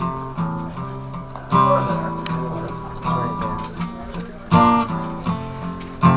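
Acoustic guitar played live: picked bass notes and chords, with hard strums about a second and a half in and again near four and a half seconds. It is the intro of a song, before the vocal comes in.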